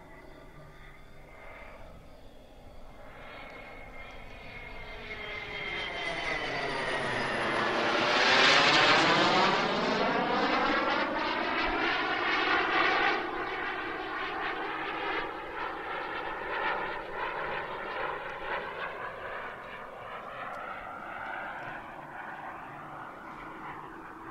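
Jet Central Mammoth turbine (48 lb thrust) of an Xtreme A.R.F. Vixen model jet in flight, making a pass. It swells to its loudest about a third of the way in, then slowly fades as the jet flies away.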